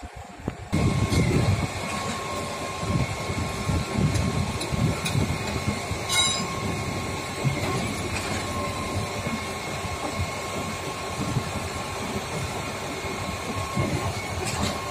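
A Sany 47-metre truck-mounted concrete pump running at a concrete pour. It gives a steady machine drone with a held high whine and uneven low surges, and a short clatter about six seconds in.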